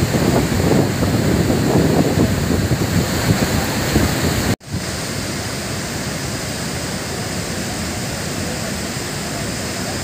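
Waterfall rushing, with wind buffeting the microphone in the first half. After a brief break about halfway, the rush goes on steady and even.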